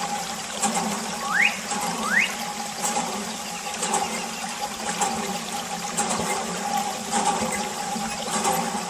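Water trickling and splashing from a thin plastic tube fed by a mini water pump, over a steady hum from the small pump motor. Two short rising chirps come in, about one and a half and two seconds in.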